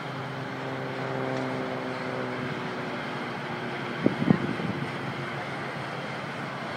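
Steady freeway traffic noise, with an engine hum from a passing vehicle in the first couple of seconds. Two short, loud bumps come about four seconds in.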